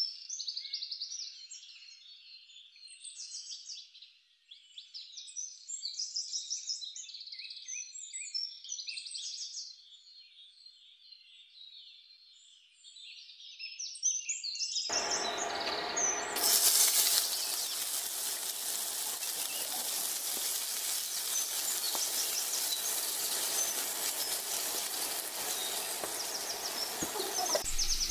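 Birds chirping in quick, high-pitched calls. About halfway through, a steady sizzling hiss of food frying in hot oil starts, and the chirps carry on over it.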